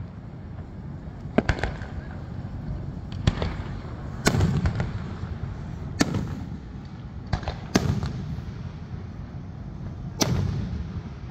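Fireworks display: shells bursting in about eight sharp bangs every second or two, some in quick pairs, over a continuous low rumble.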